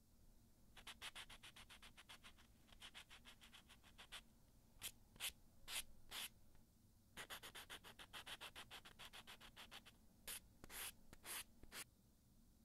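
Nail buffer block rubbing back and forth across a natural fingernail. It goes in two runs of fast, short strokes, each run followed by a few slower, longer strokes.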